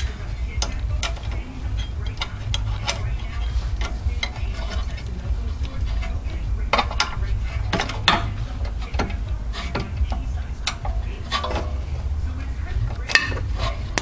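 Metal hand tools clinking and scraping against a car's rear brake caliper in irregular clicks, over a steady low rumble.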